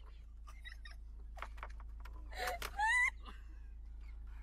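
A person's high-pitched, wailing scream about halfway through, its pitch rising, with short gasping cries just before it, over a steady low hum.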